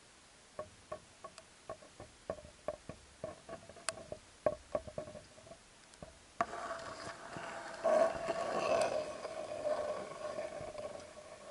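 Muffled underwater ticks, three or four a second and irregular. About six and a half seconds in they give way to a rough rubbing, scraping noise, loudest a little later and fading near the end, heard through an action camera's waterproof housing.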